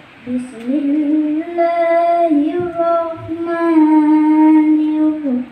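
A child reciting the Quran in the melodic tilawah style, opening with long held notes that waver slightly in pitch and break off near the end.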